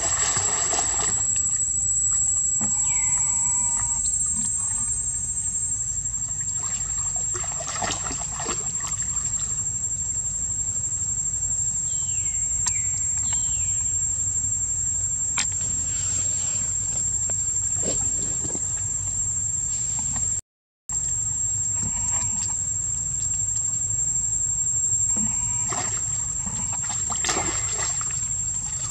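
Young monkeys splashing and paddling in a shallow stone pool, in bursts of splashing, over a steady high-pitched insect drone. A couple of short falling squeaks come about twelve seconds in, and the sound drops out for half a second around twenty seconds in.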